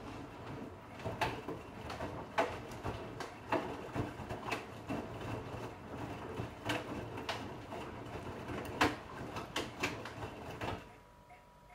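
Bosch Serie 8 front-loading washing machine drum turning during the wash, with laundry tumbling and irregular knocks and clicks, for about eleven seconds before it stops near the end.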